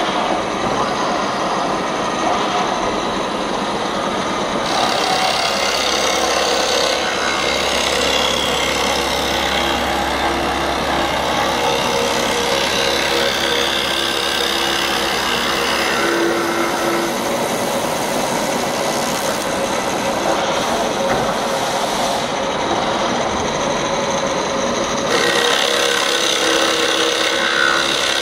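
A spindle-mounted cutter bit machining mahogany wood, a steady loud cutting noise of the bit chewing through the wood with the motor running. Its tone shifts a few times as the cut moves along the piece.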